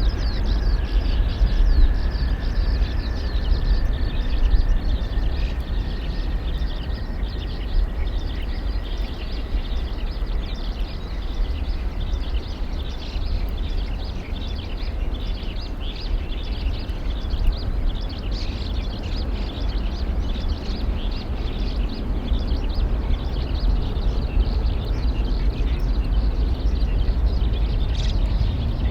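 Outdoor ambience of many small birds chirping over a steady low rumble. A faint thin tone rises slowly over the first several seconds and then fades out.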